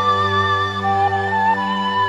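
Slow instrumental background music: long held chords under a gently wavering high melody line, with a couple of notes stepping up about a second in.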